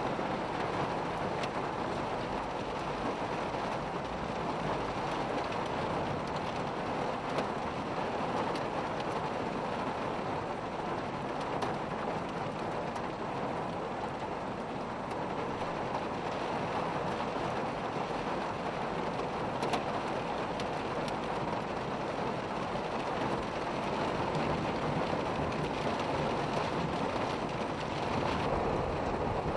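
Heavy rain pouring down onto a flash-flooded street as floodwater rushes past, a steady, unbroken wash of noise.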